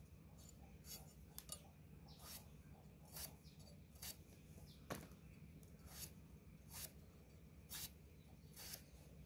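Potato being peeled and sliced against an upright boti blade: faint, short scraping cuts about once a second.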